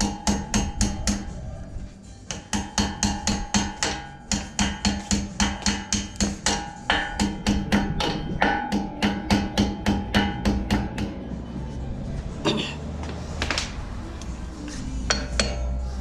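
Rapid hammer strikes on metal, about four or five a second in runs with short pauses and a ringing note under each run. The strikes stop about eleven seconds in, and a few scattered clinks follow.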